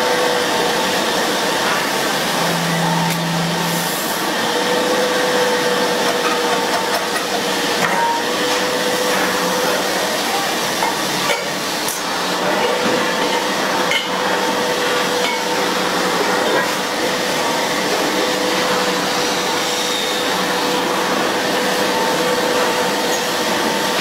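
Metal lathe running as a hand-held cutting tool turns a pressure cooker body, giving a steady dense machining noise with a held whine and a few sharp clicks.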